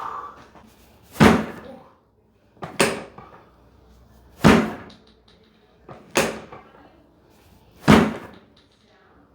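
Five sharp thumps, evenly spaced about one every second and a half to two seconds, each dying away quickly.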